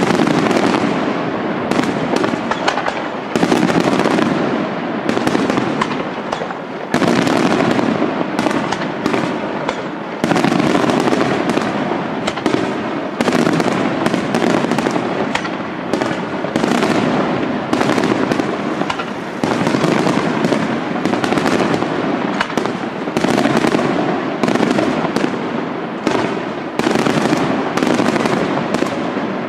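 Aerial fireworks display: a dense, unbroken barrage of shell bursts, many sharp bangs a second with no pause.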